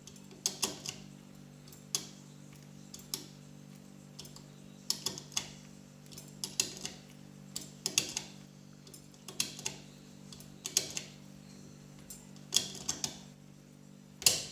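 Prodecoder Automatic decoder clicking inside a Juwel 4x4 safe lock as it is turned under tension; the clicks mean the decoder is working through the plates. Short clusters of sharp clicks come about every one to one and a half seconds over a steady low hum.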